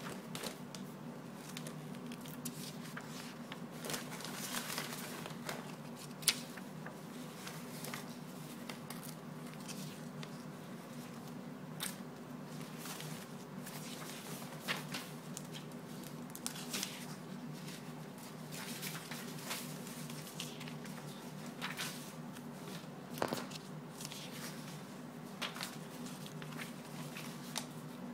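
Paper flyers and circulars rustling and crinkling in a plastic bin as a kitten shifts and burrows among them, in irregular crackles with one sharper snap about six seconds in, over a steady low hum.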